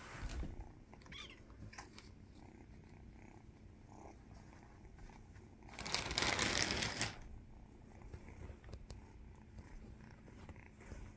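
Orange tabby kitten purring steadily, a low continuous rumble. About six seconds in, a loud burst of noise lasting over a second stands out above the purr.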